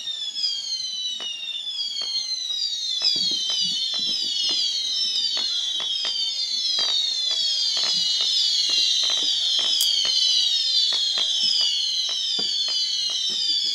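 Fireworks going off, heard as sharp pops about once or twice a second. Over them, many overlapping high whistles fall in pitch without a break.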